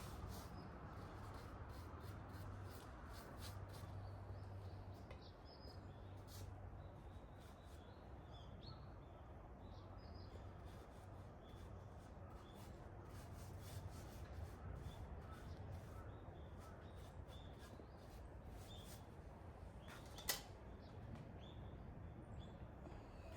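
Faint outdoor ambience: a steady low hum with scattered faint bird calls, and one sharp click about twenty seconds in.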